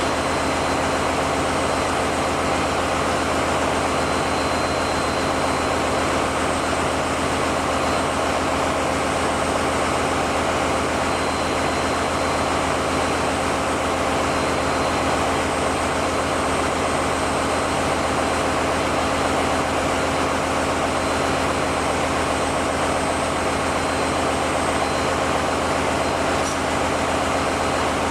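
Steady, loud drone of running diesel generator machinery, with a constant low hum and a thin, high whine held throughout.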